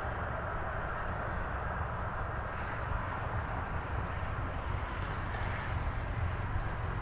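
Steady outdoor rushing noise with a low rumble beneath it, even and unbroken.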